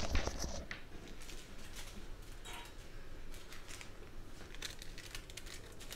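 Faint handling noises: a few light rustles and clicks over low steady background noise.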